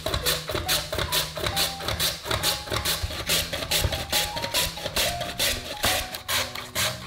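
Raw potato pushed back and forth over a julienne mandoline slicer, a rasping scrape with each stroke as its blades cut thin strips, about three strokes a second.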